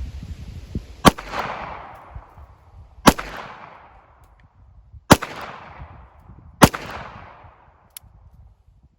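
Four pistol shots from a Ruger LCP .380 ACP compact pistol firing hollow-point rounds, about two seconds apart with the last coming a little sooner. Each shot is followed by an echo that fades over about a second.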